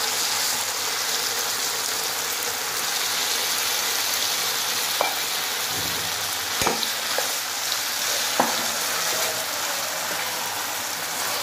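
Khoya frying in ghee on low heat in a non-stick frying pan, a steady sizzle, while a slotted spoon stirs and breaks up the lumps, knocking sharply against the pan a few times in the middle.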